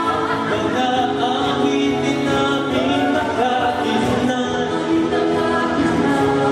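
Several voices singing a song live in harmony, holding sustained notes together.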